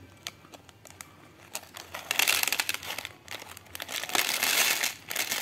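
Thin plastic zip bag crinkling as it is handled and emptied, with small plastic nanoblock bricks clicking as they drop into a plastic tub. The crinkling starts about two seconds in.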